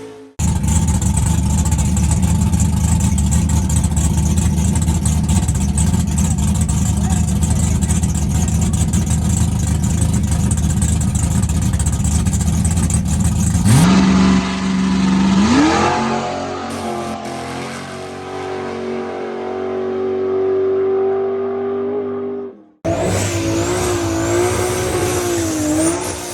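Drag-racing street car engine running hard at full throttle, then a rise in pitch about 14 s in that settles into a steady drone. An abrupt cut about 23 s in brings in another engine with a wavering pitch and a high whine over it.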